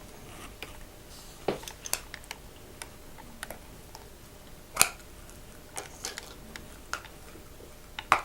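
Scattered sharp plastic clicks and taps as Play-Doh tubs and lids are handled on a table, the loudest a little under five seconds in and again at the end.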